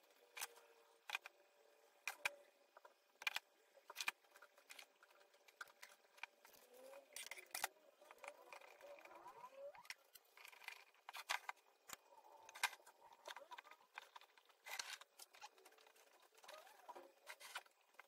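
Steel F-clamps being handled and fitted onto a glued-up wooden box: a scattered series of sharp metal-and-wood clicks and knocks, with sliding scrapes in the middle as clamp jaws are run along their bars and tightened.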